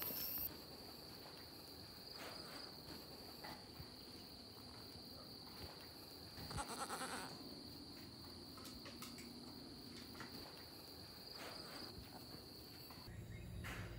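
Goat kids bleating faintly, the loudest call about halfway through, over a steady high-pitched whine that stops near the end.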